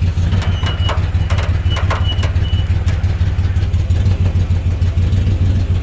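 A vehicle engine idling steadily with a low, fluttering rumble. Between about half a second and two and a half seconds in there are several sharp metallic clinks and a thin high squeak, typical of chain or hoist metal working while an engine is lifted.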